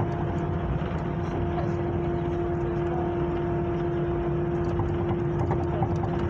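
Airliner cabin noise with the jet engines running: a steady low rumble under a steady hum, holding level, before the takeoff roll.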